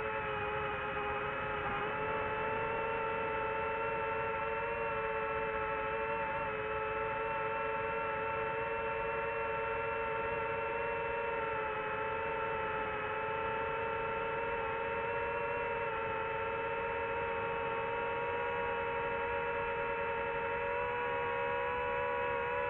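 Multirotor drone's motors and propellers whining steadily in flight, heard from the drone's own camera: a hum made of several held tones whose pitch wavers slightly now and then.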